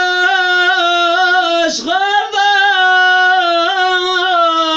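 A man singing a Turkish bozlak-style uzun hava folk lament in a high, strained voice, holding long drawn-out notes with small wavering ornaments and a brief pitch drop and catch of breath about two seconds in.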